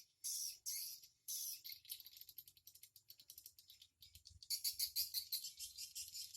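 Edible-nest swiftlets chirping and twittering in quick, high-pitched bursts, with a rapid clicking trill in the middle. The calls grow denser and loudest over the last two seconds.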